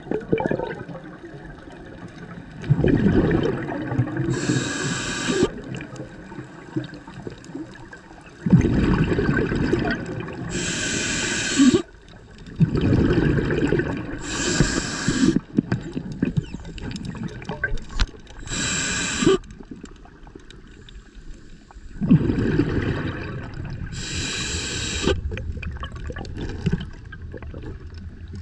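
Scuba diver breathing underwater through a regulator: bursts of bubbling from the exhaled air, each with a hiss, coming every few seconds.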